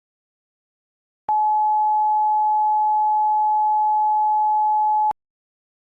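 A single steady electronic alert tone held for nearly four seconds, switching on and off abruptly with a click at each end: an emergency alert attention tone.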